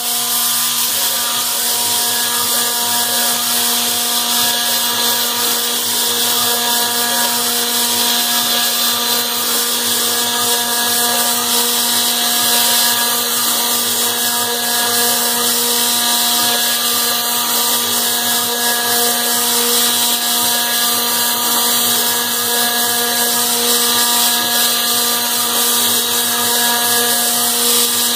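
CAMaster CNC router spindle running at a steady whine while its cutter mills aluminum, with a constant hiss of cutting over it.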